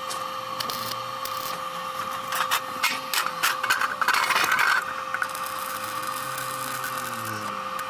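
Stick (arc) welding on thin steel plate: a steady hum from the welding machine, with a dense burst of crackling, about two and a half seconds long, midway through.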